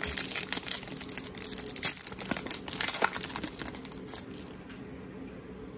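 Foil wrapper of an Upper Deck hockey card pack being torn open and crinkled by hand, a dense crackle for about three and a half seconds that then dies down.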